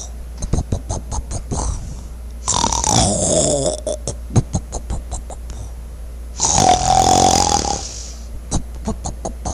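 Exaggerated, cartoon-style snoring sound effect: two long rasping snores about four seconds apart, each with a whistling tone that falls in pitch, and rapid clicking, rattling breaths between them.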